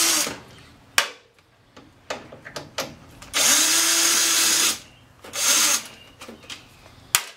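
Cordless drill-driver backing screws out of a treadmill's plastic motor cover in short bursts. The longest run comes a little past the middle and another brief one follows, each a steady motor whine. Sharp clicks fall about a second in and near the end.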